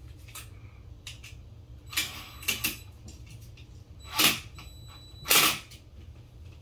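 DeWalt cordless impact driver run in four short bursts, the last two loudest, turning the terminal screws on a wall outlet.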